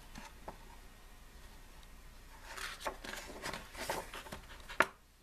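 Pages of a glossy album photobook being turned by hand: a few paper rustles and swishes in the second half, with a sharp tap near the end.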